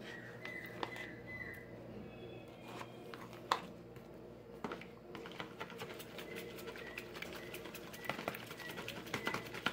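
A metal spoon scraping and clicking against a plastic tub as margarine and raw eggs are beaten by hand, a fast run of light clicks from about halfway through. Before that, a few single knocks as the margarine is spooned into the tub.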